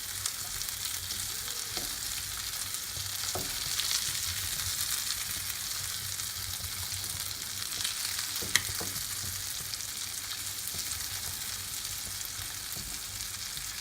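Masala-coated sankara fish shallow-frying in a little oil on a tawa over a low flame, a steady sizzle with a few light clicks, the sharpest about two-thirds of the way through.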